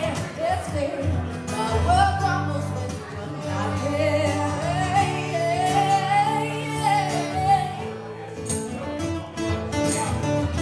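A woman singing live with guitar accompaniment: a sung melody over held low notes.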